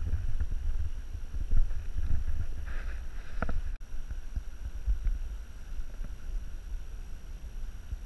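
Gusty, low rumble of wind buffeting the microphone, with a few faint knocks and rustles.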